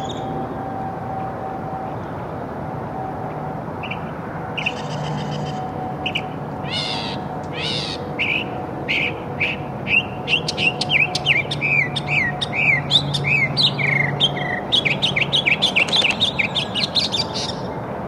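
Northern mockingbird singing: short varied phrases at first, then from about ten seconds in a near-continuous run of quick, repeated notes, over a steady low hum.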